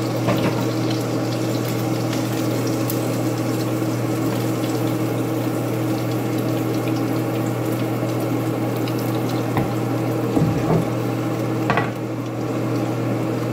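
Steady kitchen hiss with an even low hum underneath, and a few light knocks of cookware about ten seconds in.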